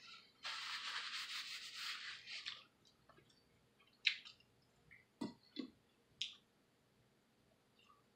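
Close-up chewing of crispy fried chicken tenders: about two seconds of crunchy chewing, then a few scattered mouth clicks and smacks.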